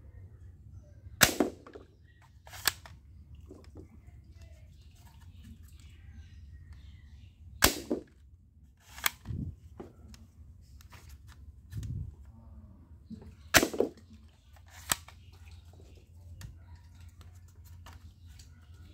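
Green plastic toy pump-action dart shotgun being worked, its mechanism giving sharp loud plastic snaps in three pairs, the two snaps of each pair about a second and a half apart, with quieter handling rattles between.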